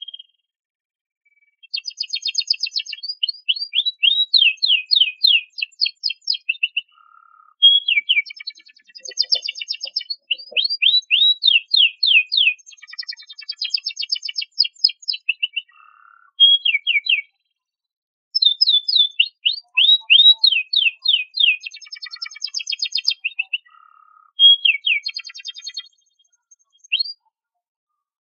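Domestic canary singing: several long phrases of fast rolling trills and rapid repeated sweeps, with short pauses between phrases.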